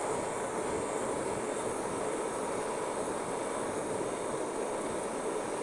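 Jeweller's soldering torch flame hissing steadily as it heats the joint of a sterling silver wire ring, bringing medium solder up to flow.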